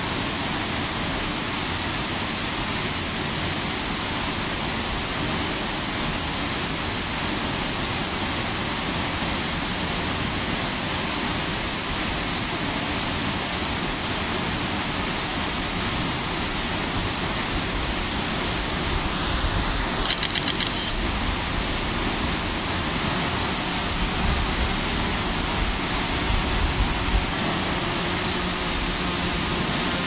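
Steady rushing noise of a waterfall, with a short, rapid high-pitched trill about two-thirds of the way through.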